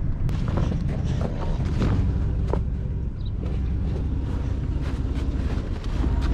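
Old two-wheel-drive pickup truck's engine idling with a steady low rumble, with scattered clicks and knocks from the truck's door and from footsteps crunching in snow.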